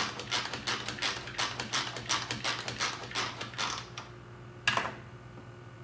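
Pampered Chef manual food processor being pumped, its plunger spinning the blades through avocado with rapid ratcheting clicks, about five a second. The clicking stops about four seconds in, and one sharp knock follows shortly after.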